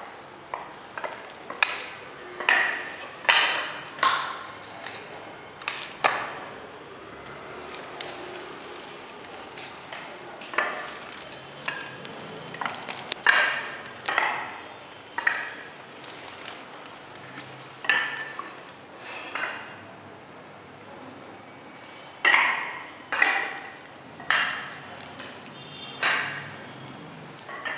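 Spiked epoxy shoes clicking on a wet epoxy floor as a worker steps about: irregular sharp clicks, each with a short ring, coming in runs with a few pauses.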